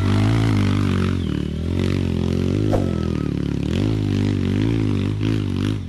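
Dirt bike engine revving on a steep dirt-trail climb, its pitch rising and falling over and over as the throttle is worked. There is one sharp knock about three seconds in.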